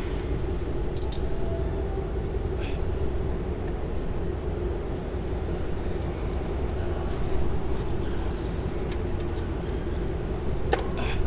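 Steady low mechanical hum with a few light metallic clicks of hand tools as bolts on the steering column assembly are undone.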